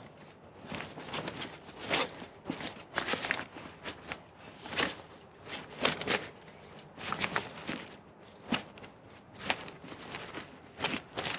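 Irregular rustling, crinkling and soft knocking of a stiff waterproof bag and its insert being handled and pushed into place.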